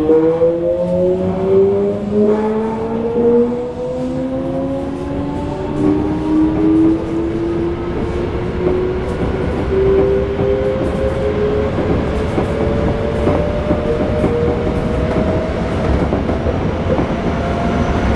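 Toei 5300-series subway car's VVVF inverter and traction motors whining inside the passenger car as the train accelerates: several tones climb steadily in pitch throughout, over the rumble of the wheels on the rails.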